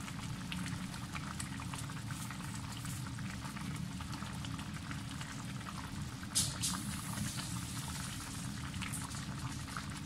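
A pot of sotanghon broth with vermicelli and vegetables simmering on the stove: a steady low rumble under fine, irregular bubbling crackle. A short, sharp crackle stands out about six seconds in.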